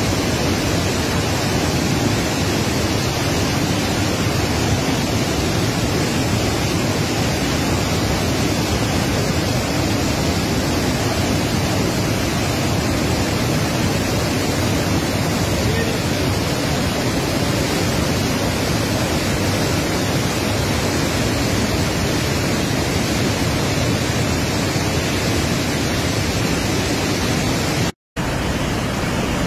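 A large waterfall in high flood, a steady heavy rush of falling water. It cuts out for an instant near the end.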